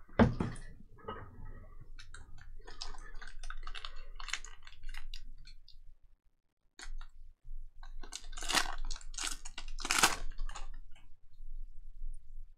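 A thump, then the foil wrapper of a trading-card pack crinkling as it is slit open with a box cutter and peeled back. After a brief pause there are louder bursts of foil crinkling in the second half.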